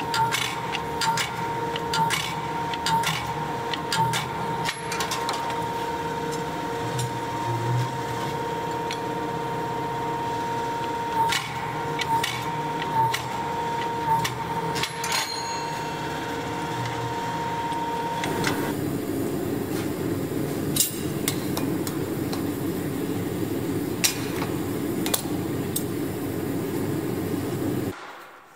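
Power hammer striking a red-hot steel axe head between its dies in separate blows, over the machine's steady high-pitched hum. About two-thirds of the way through the hum stops and a rougher, rushing machine noise takes over.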